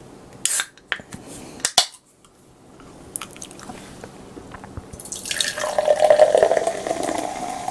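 A soda can is opened with a couple of sharp clicks and a crack of the pull tab. From about five seconds in, carbonated melon soda is poured from the can into a glass mug, splashing and fizzing as it fills.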